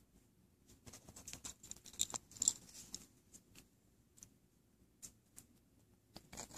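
Faint scattered light clicks and scratchy rustles of handling, densest in the first few seconds and sparse after, with a few more clicks near the end.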